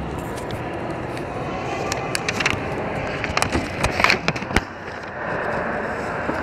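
Steady noisy ambience of a public hall with no clear single source, with scattered sharp clicks and knocks about two to four and a half seconds in and one sharp knock at the end.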